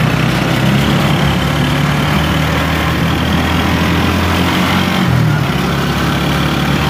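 Engine of a moving passenger vehicle heard from inside its open-sided cab, running steadily under wind and road noise. The engine note shifts briefly about five seconds in, then settles again.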